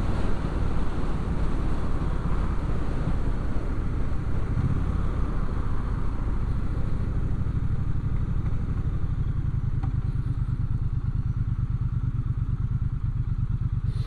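Motorcycle engine running under way, with wind rushing over the helmet-level microphone at speed. About two-thirds of the way through the wind dies down as the bike slows in traffic, leaving a low, steady engine note.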